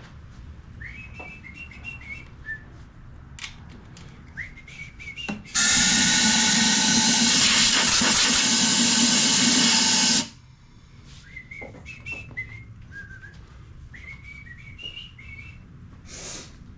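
A loud, steady hiss lasting about four and a half seconds, starting about five and a half seconds in and cutting off suddenly, with faint high chirps before and after it.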